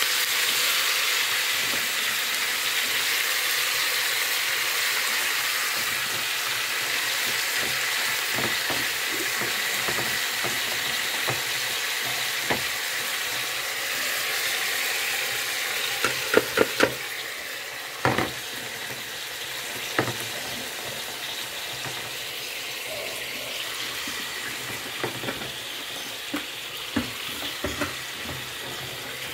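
Chicken pieces and onion sizzling as they fry in fat in a cast-iron pan, the sizzle easing after about halfway. A few sharp knocks of a utensil against the pan come about two-thirds of the way in, with lighter taps near the end.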